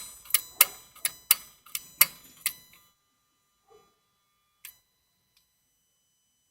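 Opel Astra H 1.7 CDTi turbocharger's variable-geometry mechanism clicking with the engine off, about three sharp clicks a second that fade and stop just under three seconds in, with one more click near the end. This is the sign of a dirty turbo whose geometry is sticking.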